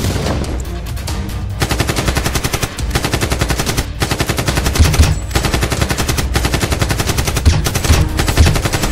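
Rapid automatic gunfire sound effects, long machine-gun bursts broken by a couple of short pauses, dubbed over Nerf blasters being fired, with music underneath.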